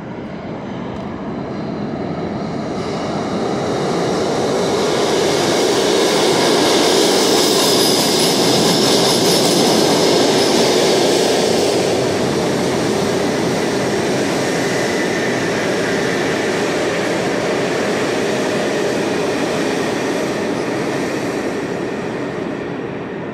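New York City subway express train running through a local station without stopping: a rumble that builds as it approaches, peaks with a high wheel squeal as the cars pass, holds while the rest of the train goes by, then fades away.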